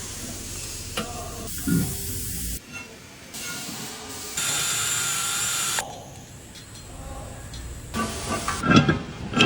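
Hissing air in two sudden bursts, each about a second long, over a steady workshop hum, with a few sharp knocks near the end.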